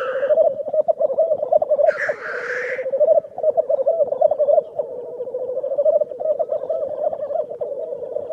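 Grouse calling: a continuous, rapid bubbling coo, broken by a short hissing burst at the start and a longer one about two seconds in.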